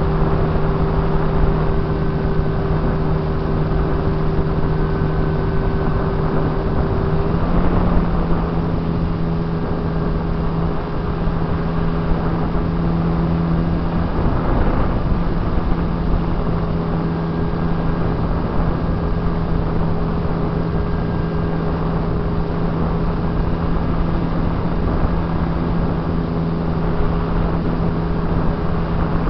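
RC model airplane's motor and propeller running steadily, heard from a camera on board the plane as a constant hum under a rush of airflow noise. The pitch steps slightly about seven seconds in and wavers briefly halfway through as the plane banks.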